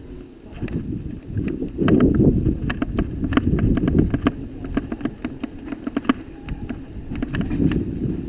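Mountain bike rolling fast over cobblestones: the tyres rumble on the stones, and the bike gives an irregular clatter of sharp knocks and rattles, loudest about two seconds in.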